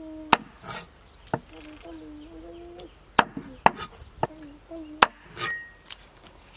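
Knife chopping on a wooden chopping block: a handful of sharp, irregularly spaced knocks, with a faint wavering whine between them.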